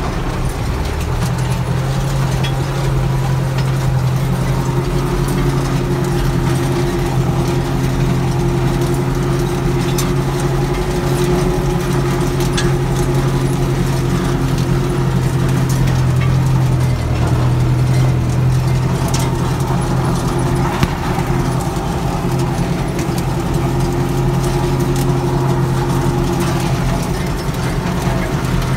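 John Deere tractor's diesel engine running steadily under load during sugar beet lifting, heard from inside the cab, a constant drone with scattered light rattles.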